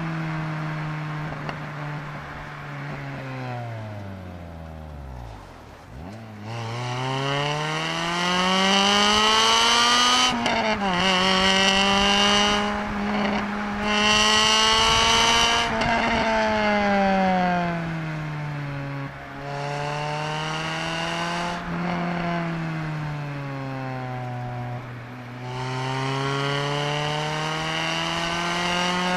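Honda Civic Type R EP3's 2.0-litre i-VTEC four-cylinder engine heard from inside the cabin under hard driving. The revs fall away to low about five seconds in, climb steeply to about ten seconds, drop at a gear change, and hold high before easing off and climbing again near the end. It is loudest at high revs, where a higher rasp joins the engine note.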